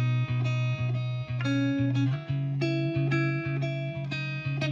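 Instrumental background music: quick, evenly spaced pitched notes over a held low note.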